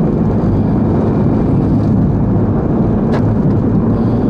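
Vehicle engine and road noise heard from inside a moving car's cabin, a steady low hum, with a brief click about three seconds in.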